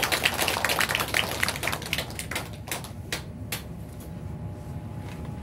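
A small audience clapping: many quick, uneven claps that thin out and stop about three and a half seconds in.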